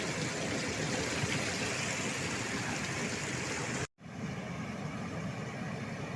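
Steady rushing of flowing river water. It cuts off abruptly about four seconds in and is followed by a duller steady rumbling noise.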